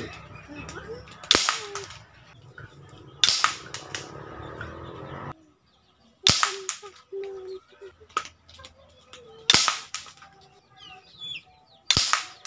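Five sharp shots from a homemade PVC toy gun firing 8mm steel balls, spaced about two to three seconds apart.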